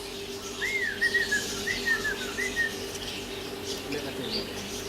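A bird chirping: a quick run of about seven short, arched whistled notes in the first half, over a steady low hum.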